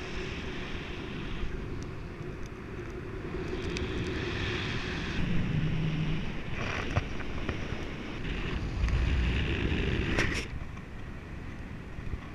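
Wind rushing over an action camera's microphone on a paraglider in flight, a noisy rumble that swells and fades in gusts, loudest about nine to ten seconds in before easing off.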